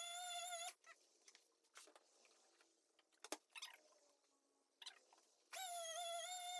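Electric orbital sander with coarse paper whining steadily as it sands a painted pine board. It stops abruptly about a second in, leaving a few seconds of faint handling rustles and light clicks, one sharper click midway. The sander starts again about a second before the end.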